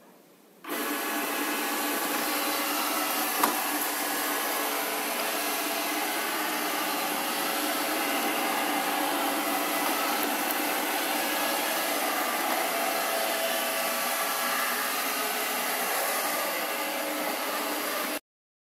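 Alfawise X5 robot vacuum cleaner starting up about a second in and running steadily: a whirring hiss from its suction fan and brushes as it moves over a hard tile floor, with one short click a few seconds in. The sound cuts off suddenly near the end.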